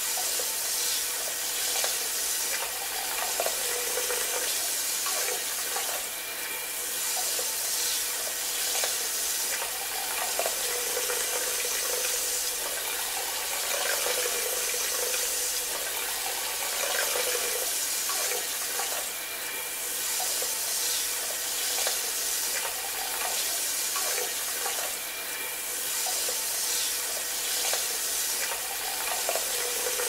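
Handheld bidet sprayer spraying water in a steady hiss, with small swells in level.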